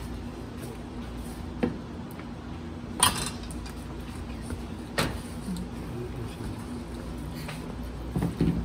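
Wooden spatula beating eggs into choux paste in a stainless steel bowl, knocking sharply against the bowl a few times, loudest about three seconds in.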